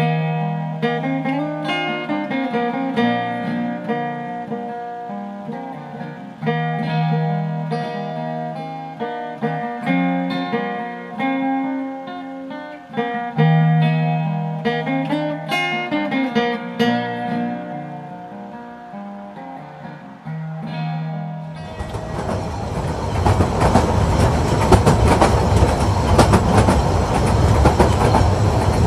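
Solo acoustic folk guitar improvisation. About three-quarters of the way through it cuts abruptly to the loud, steady running noise of a narrow-gauge train carriage in motion, with wind coming through its open windows.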